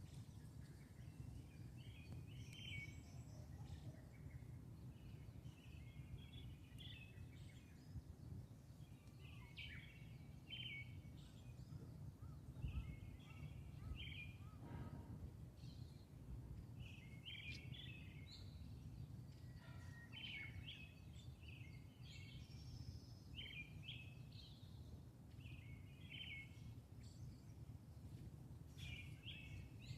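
Faint bird chirps, short calls repeating irregularly throughout, over a steady low outdoor background rumble.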